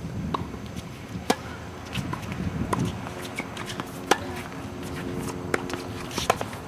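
Tennis balls being struck by rackets and bouncing on a hard court during a doubles rally: a string of sharp, irregularly spaced pops, two of them louder than the rest.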